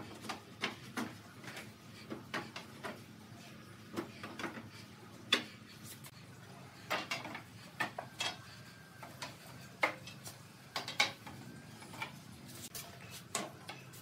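Wooden bed slats knocking and clattering as they are set one by one across a wooden bed frame: a string of irregular light knocks, a few of them sharper.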